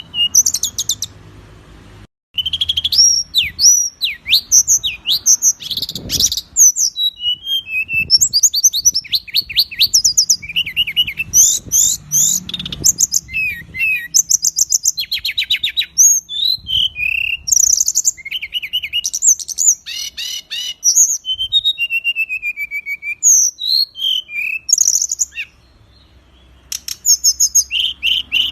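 Loud songbird song of the kind used as masteran training material: a dense run of varied high-pitched chirps, rapid trills and sharp whistled notes, broken by short pauses about a second in and a few seconds before the end.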